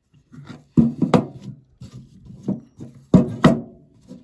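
Stacked-leather boot heel bases knocking against a hard work surface as they are handled: two pairs of sharp knocks about two seconds apart, with softer rustling and tapping between.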